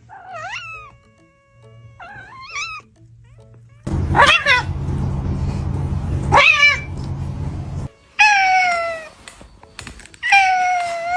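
Angry cats meowing and yowling: several short calls that bend up and down in pitch, then two long, drawn-out yowls in the last few seconds. A rough, noisy rumble runs under the calls through the middle.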